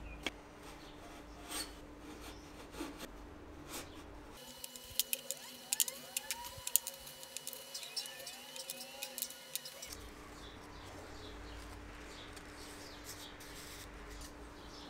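Faint small metallic clicks and scrapes of reed organ reeds being hooked and slid out of their cells with a reed puller, sparse at first and coming thick and fast through the middle, with a few short squeaks among them. A low steady hum sits underneath.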